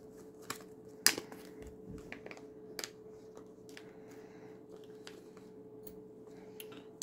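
Sporadic small clicks and taps of a padlock's parts and tools being handled during reassembly, the sharpest about a second in, over a steady faint hum.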